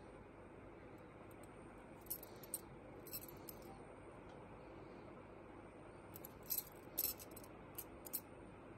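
Two silver bangles clinking lightly against each other as they are turned in the hand: a few small metallic clinks about two to three seconds in, and a cluster of sharper clinks near the end.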